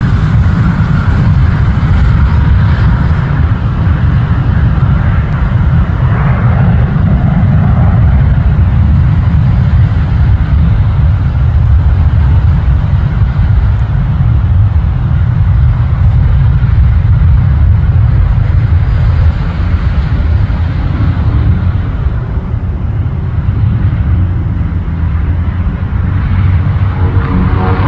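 Steady, loud low rumble of an aircraft on approach to land, with the engines' whine coming through near the end.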